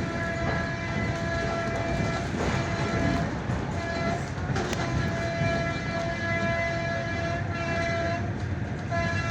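ED4M electric multiple unit sounding its horn in repeated blasts while running through the station at speed: a long blast, a short one, another long one, and a fourth starting near the end. Under the horn the train's passing rumbles and its wheels clack on the rail joints.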